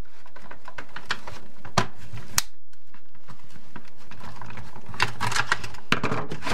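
Screwdriver backing screws out of a Roomba's plastic underside: scattered small clicks and taps, with a denser run of clicks and knocks near the end.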